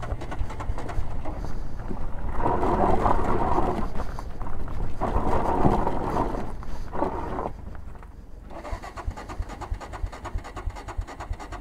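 Motorcycle on a rough dirt track, its engine running up in three bursts of a second or two each, then dropping to a quieter stretch with irregular low thumps and rattles from the bumpy ground. The bike keeps losing revs and stalling and is hard to restart.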